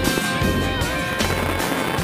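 Instrumental background music with a steady beat and held notes that bend in pitch over a bass line.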